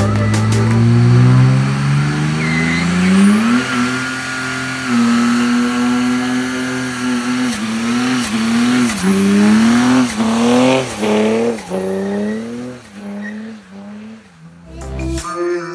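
Turbo-diesel inline-six (Mercedes OM606) in a Tacoma revving hard in a burnout, its pitch climbing steeply and then held high with tyre squeal. From about halfway it rises and drops again and again as the truck pulls away, fading with distance.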